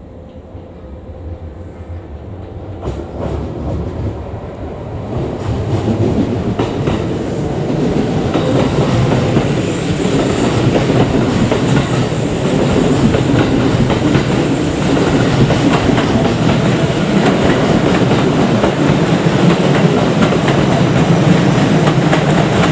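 Kintetsu 22600 series 'Ace' electric limited express rolling slowly into a station and past. It grows louder over the first several seconds as it comes nearer, then holds a steady loud rumble with the wheels clacking over rail joints and points.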